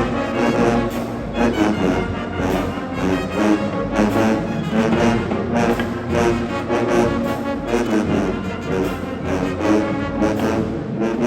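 High school marching band playing a loud brass piece, trombones and trumpets carrying the melody over steady drum hits.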